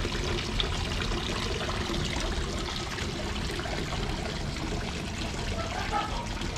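Steady outdoor ambience of a wet, snow-covered city street: an even wash of noise with no single sound standing out.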